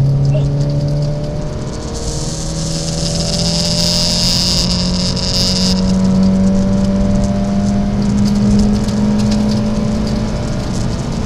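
Rally car's engine pulling hard under full throttle, heard inside the cabin, with a gear change about two seconds in, then the engine note climbing slowly through a long pull. Gravel and tyre noise hisses under the car for a few seconds in the middle and stops suddenly.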